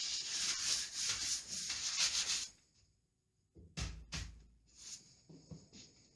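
Brisk rubbing strokes against a surface for about two and a half seconds, then a short pause, two knocks close together and a few fainter taps.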